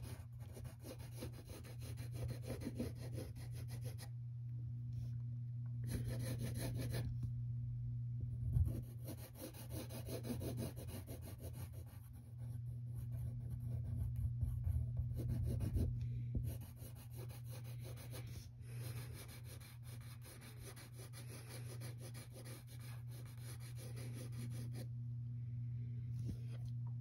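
Graphite pencil scratching on paper in stretches of strokes as the outline is gone over to darken it, with brief pauses when the pencil lifts. A steady low hum runs underneath.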